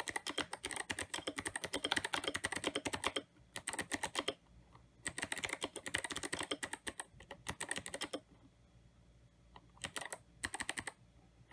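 Typing on an IDOBAO ID80 mechanical keyboard with Kailh Box Jade clicky switches and XDA-profile keycaps: fast runs of sharp clicking keystrokes in several bursts with short pauses, then two brief flurries near the end.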